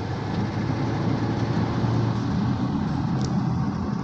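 Audi TT's turbocharged engine running steadily, heard from inside the cabin while driving, with road noise. The car is one that misfires on cylinders 1 and 4 when boost builds.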